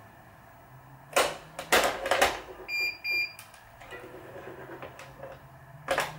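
Two short electronic beeps from a Wise 2086 tension head about three seconds in, after several loud scrapes of string being pulled and handled at the racquet frame, with another scrape near the end. A faint steady low hum runs underneath.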